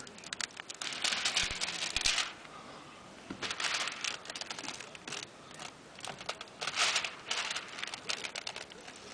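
Old window tint film being pulled slowly off a truck's window glass, its adhesive letting go with a crackling, crinkling sound. It comes in three louder stretches of a second or so, about a second in, about three and a half seconds in and about seven seconds in, with quieter crackles between.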